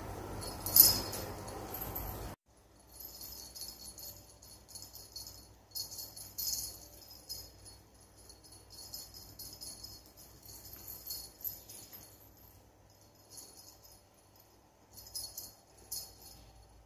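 Small jingle bell on a feather wand cat toy tinkling as the toy is shaken and dragged across the floor: one sharp, loud jingle about a second in, then short, fainter shakes on and off.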